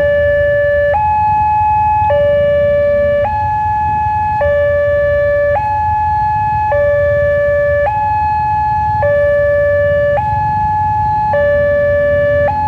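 Electronic warning alarm of a Wantech railway level crossing sounding a steady two-tone signal, a lower and a higher tone alternating about every second and a bit. The crossing is activated for an approaching train. A low rumble of waiting traffic runs underneath.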